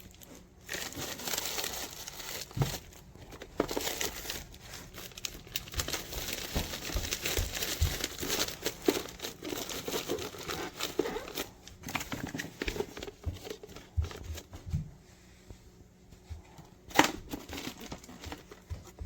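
Crinkling and rustling with small knocks and clicks as food and drinks are handled and stacked into a small mini fridge cooler, with one sharp click near the end.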